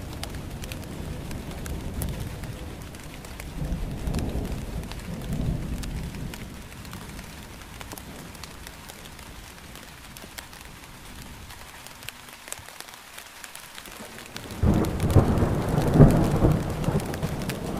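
Steady rain with rolling thunder. A low rumble swells about four seconds in and fades, and a louder rumble breaks in suddenly near the end.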